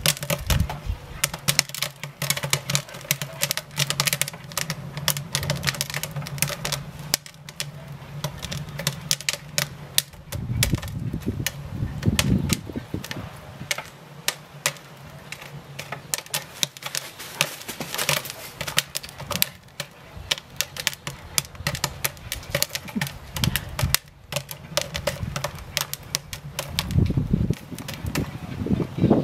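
Jiffy Pop popcorn kernels popping in the foil pan over a wood fire: a dense, irregular stream of sharp pops and crackles with only brief lulls.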